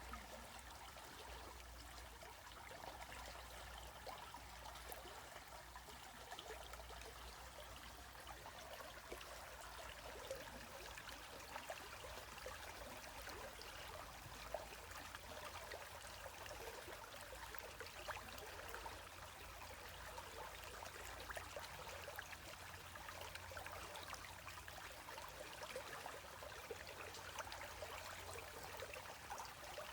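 Stream water running and trickling in a steady, gentle wash with many small splashes and bubbles.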